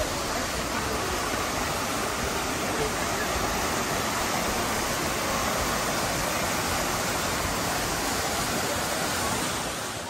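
Waterfall rushing steadily as it cascades down a steep rock face close by.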